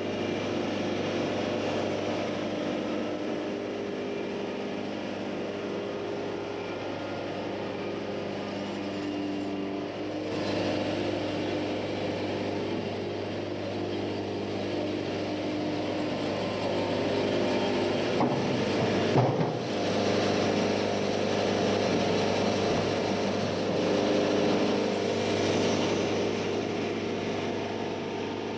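Wood-Mizer LT-70 bandsaw sawmill with its diesel engine running steadily. The sound swells a little a few times, and there is a brief clatter about two-thirds of the way through.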